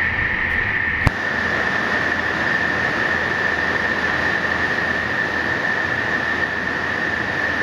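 Extrusion lamination plant running on the factory floor: a steady machine noise with a constant high whine over it, and a single sharp click about a second in.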